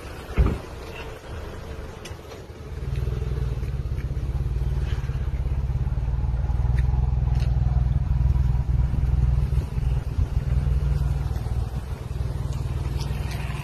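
Nissan Rogue SUV's engine running close by, a steady low hum that swells up about three seconds in, with a single knock just after the start.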